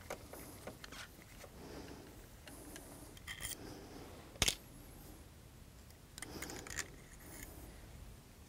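Screwdriver backing out the small screws that hold a hard drive's head actuator assembly: faint scraping with light metallic clicks and clinks, and one sharper click about four and a half seconds in.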